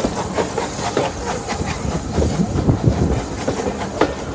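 Steam-hauled train running on rails: a steady rumble with many irregular clicks and knocks from the wheels over the rail joints.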